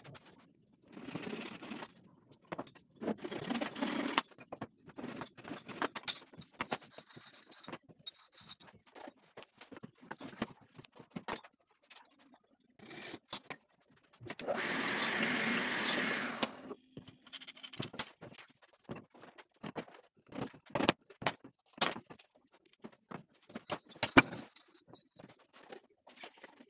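Hand work on wooden chair parts: scattered knocks and clicks of wood and tools being handled, with short bursts of scraping and one longer scrape of about two seconds midway.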